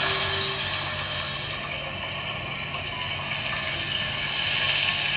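Salmon fillet pieces sizzling in coconut oil on a hot electric grill pan: a steady hiss.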